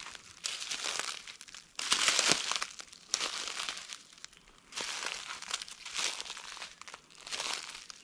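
Footsteps crunching through dry fallen oak leaves, a crackly crunch about once a second, the loudest about two seconds in.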